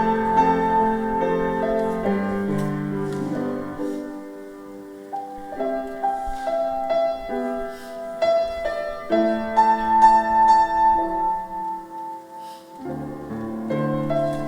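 Instrumental passage of a sacred choral piece, led by piano playing slow, sustained chords, softening for a moment about four seconds in before building again.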